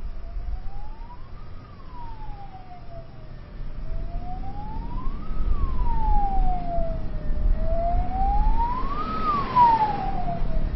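Emergency vehicle siren wailing, its pitch rising and falling slowly about every four seconds, growing louder toward the end, over a low rumble.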